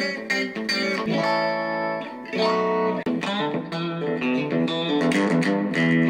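1994 Lotus Strat-copy electric guitar with single-coil pickups, played through an amp: a run of picked notes, with two notes or chords held to ring for about a second each, then quicker picking.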